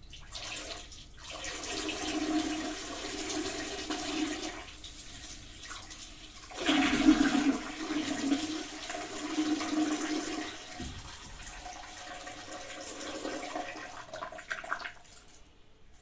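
A man urinating into toilet-bowl water: a splashing stream that starts, slackens about five seconds in, then surges strongest a second or two later. It tapers off and ends in a few short spurts near the end.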